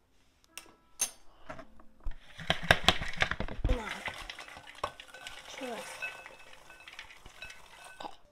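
Popped popcorn tipped out of an electric popcorn popper's clear plastic dome into a glass bowl: a few clicks of the popper being handled, then a loud rush of popcorn tumbling and rustling against glass about two seconds in. It is followed by lighter clinks of plastic on glass with short ringing tones.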